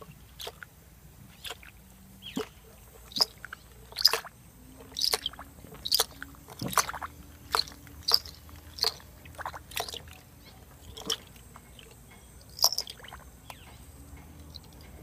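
A lorikeet bathing in a shallow bird bath, splashing and flicking water in short, irregular splashes, about one or two a second, that thin out near the end.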